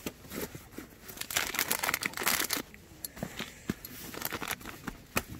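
Nylon backpack fabric and a compressed sleeping bag rustling and crinkling as gear is crammed into the pack by hand. A dense stretch of rustling comes about a second and a half in, with a few short knocks from hard items set into the pack.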